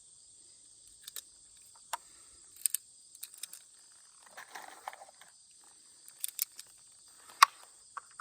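Crickets chirping steadily in the background, with scattered sharp clicks and knocks, the loudest about seven seconds in, and a brief rustle around the middle.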